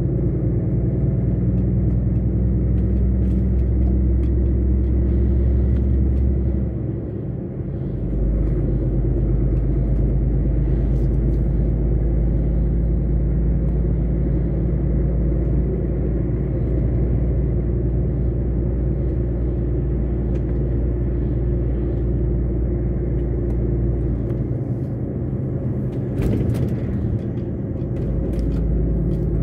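Lorry engine and drivetrain droning steadily inside the cab while driving. The deep engine note drops away briefly about seven seconds in and again near the end, as when the driver changes gear or eases off.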